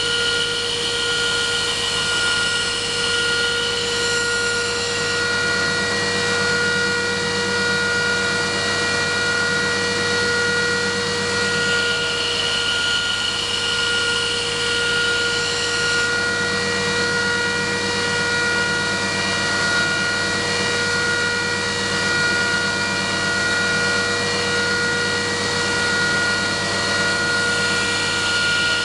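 Belt grinder running steadily with a 120 grit belt, its motor making a constant whine, while a knife blade is ground on the belt to put on the secondary bevel; a grinding hiss swells three times, near the start, in the middle and near the end.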